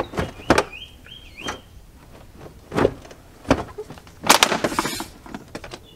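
Plastic HVAC air-conditioner housing of a 1999–2007 Chevrolet Silverado/GMC Sierra being forced and wiggled: a series of sharp plastic knocks and clicks. About four seconds in comes the loudest, longer cracking burst, the plastic housing on top of the blower fan motor snapping off under too much force.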